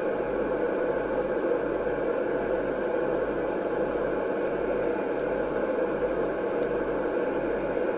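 FM CB receiver with its squelch open and no usable signal, giving a steady rushing hiss through the external speaker.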